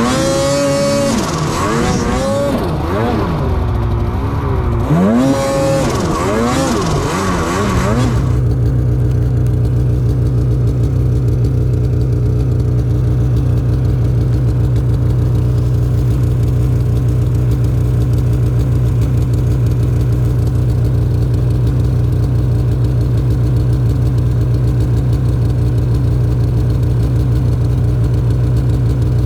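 Snowmobile engine revving up and down several times, then settling about eight seconds in into a steady, even running note.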